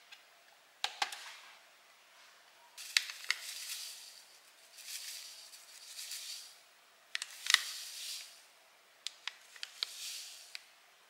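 Kitchen food-preparation handling sounds: sharp clicks and taps, loudest at about one, three and seven and a half seconds in, mixed with short bursts of rustling.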